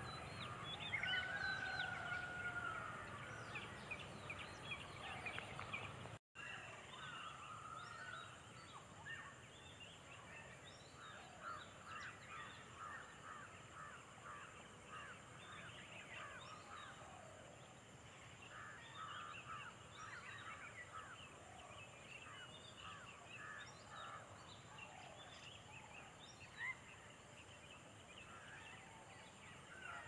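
Birds calling faintly, many short repeated calls overlapping, with a longer held call in the first few seconds. The sound drops out briefly about six seconds in.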